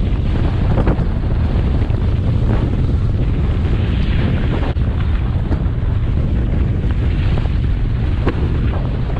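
Wind buffeting the microphone of a handheld action camera at about 50 mph on a snowboard: a loud, steady rumble with rushing hiss above it.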